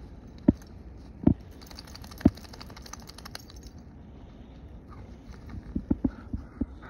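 Footsteps in snow: three heavy thuds about a second apart, then a quicker run of steps near the end, with a light metallic jingling in between.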